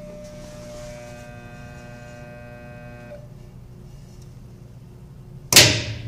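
Hobart WM-1D commercial dishwasher buzzing when switched on: a steady electrical hum with higher tones that cut off about three seconds in while the low hum carries on. The machine only buzzes and does nothing else, the fault being shown. A loud clunk comes near the end.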